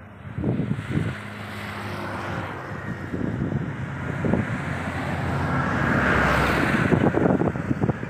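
Wind buffeting the microphone in gusts, over a passing vehicle whose rushing noise builds to its loudest about six seconds in and then fades.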